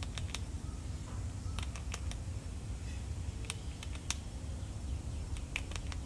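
Gray squirrel gnawing hard dried corn kernels off the cob: sharp, irregular crunches in small clusters of two or three, over a steady low rumble.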